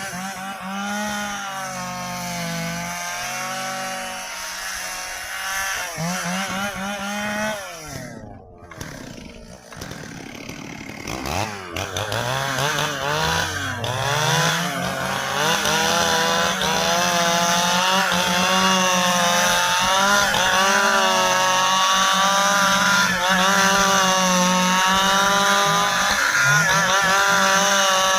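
Stihl chainsaw running and cutting dry ipê hardwood, its engine pitch rising and falling under load. About eight seconds in it drops back briefly, then revs up again a few seconds later and holds high, steady revs through the cut.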